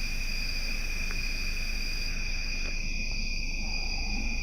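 Crickets trilling steadily as a continuous high-pitched drone, over a low background hum.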